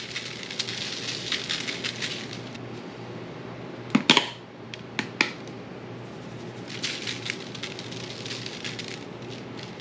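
Seasoning shaker shaken over a fish fillet, the granules rattling out in quick shakes in two spells. Between the spells come a few sharp plastic clicks from the shaker's flip-top cap being handled, the loudest about four seconds in.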